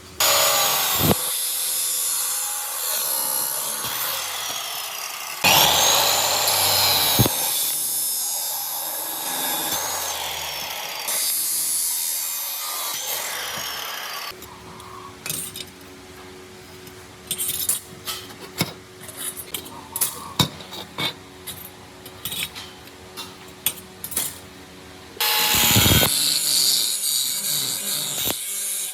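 A power tool cutting or grinding in long loud runs, its pitch dipping and recovering under load. Through the middle stretch it stops, and scattered sharp taps and clicks of hand work take over before the tool starts up again near the end.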